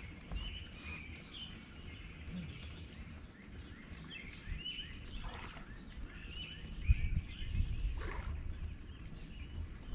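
Several songbirds chirping and whistling in quick short phrases over a low rumble, with a sharp knock about seven seconds in and another about a second later.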